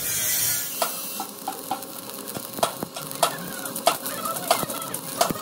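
Stick-welding arc sizzling and crackling, with many irregular sharp pops, as an electrode lays a build-up bead on an excavator bucket pin to restore its worn diameter.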